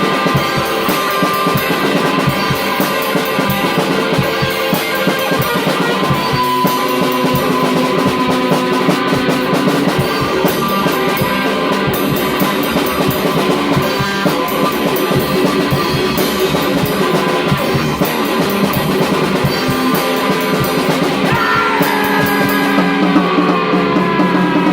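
Heavy rock band music in a djent style: a drum kit with rapid drum and cymbal hits under distorted electric guitar, playing without a break. Near the end a note glides down in pitch.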